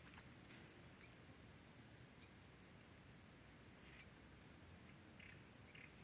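Near silence: a faint outdoor background with a few brief, faint, high-pitched chirps, about one, two and four seconds in.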